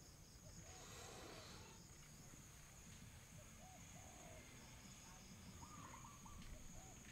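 Near silence: faint outdoor ambience with a steady high-pitched insect drone and a few short, soft bird calls scattered through it.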